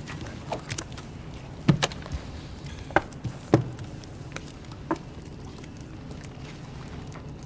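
Scattered sharp taps and knocks, the loudest a few close together between about two and four seconds in, over a low steady hum.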